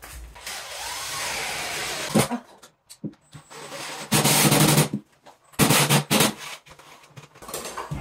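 Cordless drill driving screws into the top of a particleboard wardrobe cabinet to fix it in place, in two short bursts about four and six seconds in.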